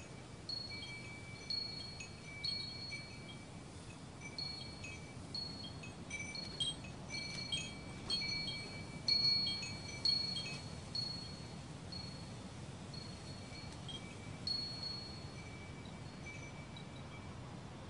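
Wind chimes ringing in an irregular pattern: a few high notes struck at random and left to ring and overlap. The strikes come thickest around the middle and thin out toward the end.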